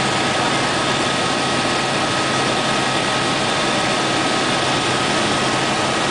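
Steady cabin noise of an Aérospatiale AS350B Écureuil single-engine helicopter in flight: turbine and rotor running with a constant high whine over a dense, even rush of noise, heard from inside the cabin.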